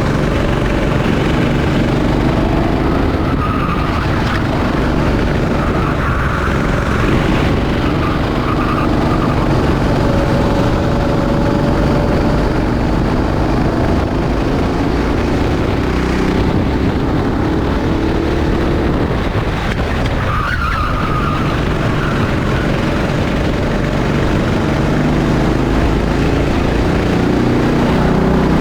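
Rental kart engine running hard, its pitch rising and falling as the throttle is worked through corners, with tyres squealing now and then.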